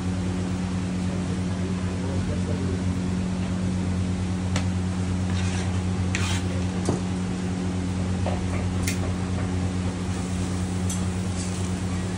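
Steady low hum of kitchen machinery, with a few scattered clinks and scrapes of utensils and dishes from about four and a half seconds in.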